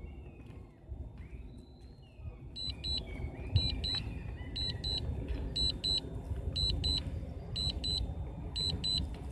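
Drone remote controller beeping an alarm: pairs of short high beeps, about one pair a second, starting a few seconds in, signalling that the drone has switched to automatic return-to-home.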